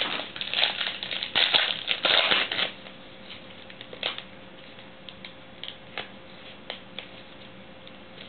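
Trading card pack wrapper crinkling loudly as the pack is opened for the first two and a half seconds or so, then quieter, scattered soft clicks of the cards being flipped through one by one.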